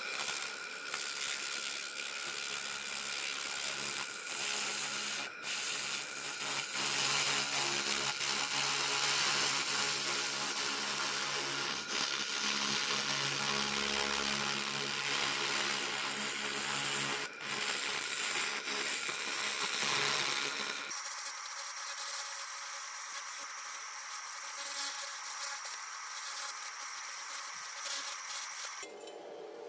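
A 700 W fiber laser cleaning torch ablating rust from a steel chisel at full power, pulsing at 1000 Hz: a loud, steady crackling hiss. A lower hum under it stops about two-thirds of the way through, and the hiss continues.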